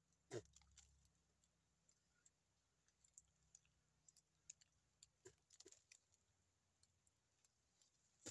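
Faint, scattered clicks and small crunches of teeth biting and scraping bark off a thin tree trunk, with one louder click about half a second in.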